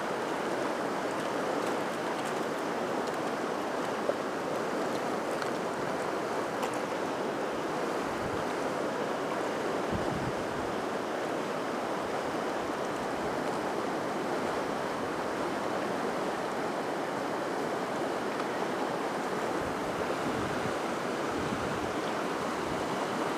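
Steady rush of river water running over rocks, an even hiss that doesn't change, with one small click about four seconds in.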